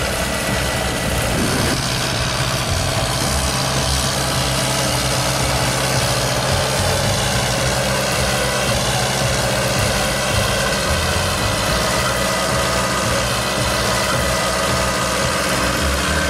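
Farm tractor's engine running steadily as it pulls a row cultivator through the field.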